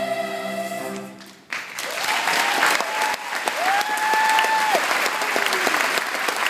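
A choir's final held chord fading out, then an audience breaking into applause about a second and a half in, with cheering over the clapping.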